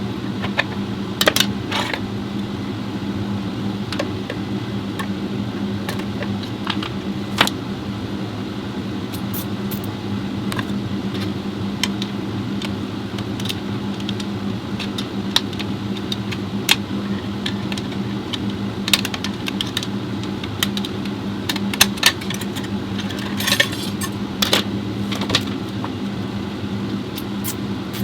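Small metal parts and tools clinking now and then over a steady mechanical hum.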